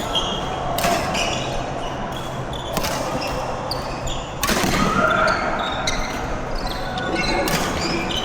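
Badminton doubles rally: sharp racket strikes on the shuttlecock every second or two, with many short high squeaks of court shoes on the hall floor.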